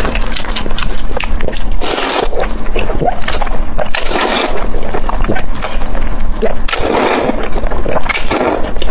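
Close-miked eating: noodles in black bean sauce slurped in several quick sucks, with wet chewing and small mouth clicks between.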